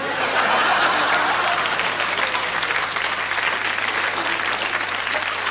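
Live audience applauding, a dense, steady wave of clapping that starts loud and eases off a little toward the end.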